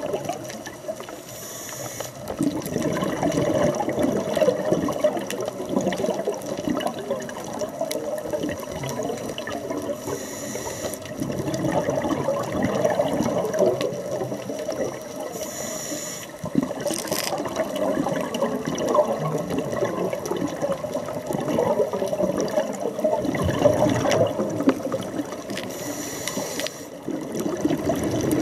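Underwater sound of a scuba diver's breathing through the regulator: exhaled bubbles gurgling and churning most of the time, broken by four short hisses as a breath is drawn in.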